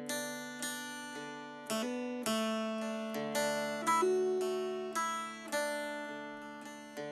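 Background music: an acoustic guitar picking single notes, each ringing out and fading before the next.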